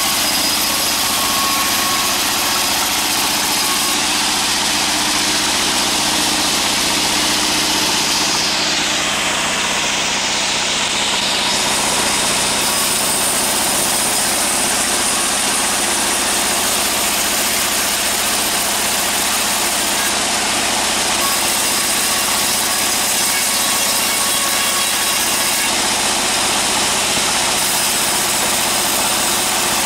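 Band sawmill machinery running steadily: a loud, continuous mechanical noise with no breaks, its high hiss dipping briefly about ten seconds in.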